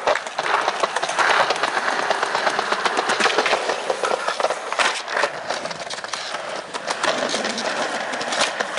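Skateboard wheels rolling on concrete and the trucks grinding along a concrete ledge, a steady rolling noise crossed by many sharp clicks and knocks of the board.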